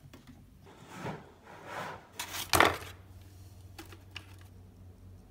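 Handling noise from fishing gear being moved about: a few rustling swells, then one loud rustle about two and a half seconds in, followed by a couple of light clicks.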